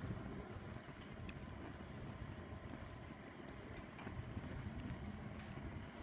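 Log fire burning, with scattered sharp crackles and pops over a low rumble.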